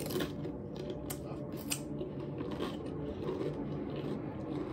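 Close-up chewing of a mouthful of Doritos tortilla chips: irregular crisp crunches.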